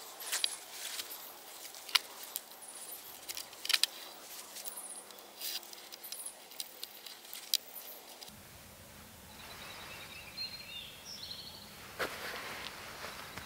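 Rustling and light clicks as cord is wrapped and pulled tight around two logs on dry leaf litter. About eight seconds in, this gives way to a steady woodland background with small birds chirping.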